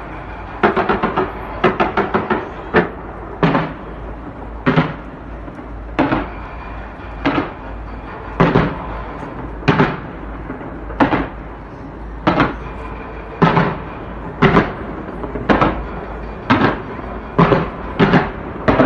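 Fireworks shells bursting in a string of booms: a quick volley of several bangs in the first few seconds, then about one bang a second.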